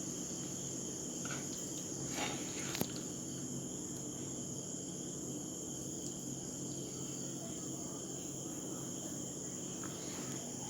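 Steady high-pitched insect chirring over a low steady hum, with a light click about three seconds in.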